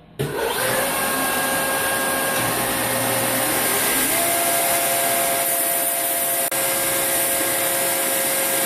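Belt grinder running with the cut edge of a steel CO2-cylinder bell held against the belt: a steady, loud grinding hiss that starts abruptly, with a few faint steady tones from the machine. The edge is being ground clean after cutting.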